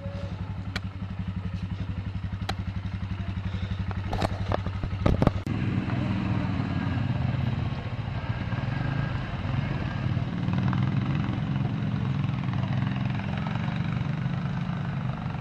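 Quad bike engine idling with a steady, even beat, cut by a few sharp clicks about four to five seconds in, the loudest of them just after five seconds. The engine then revs up and runs under throttle, its pitch rising and falling as the quads ride along the trail.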